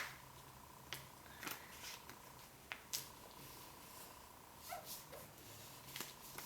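A sheet of paper being handled, folded and creased by hand: a few crisp crinkles and taps, against a faint steady whine.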